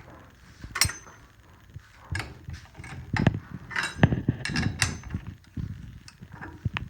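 Combination blade being fitted onto a SawStop table saw's arbor by hand: irregular metallic clicks, knocks and clinks, some ringing briefly.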